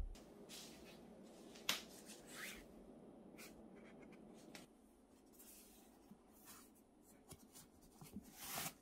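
Faint rustling and light clicks of disposable puppy training pads being handled in a plastic storage basket (IKEA SOKERBIT), with a louder swish near the end as a pad is slid out of the basket.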